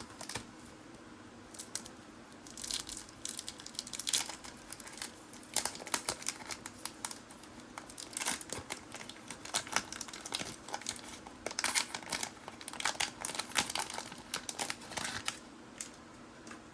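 Trading-card pack wrapper being torn open and crinkled by hand, in irregular crackling bursts, with the cards inside being handled. It stops about a second before the end.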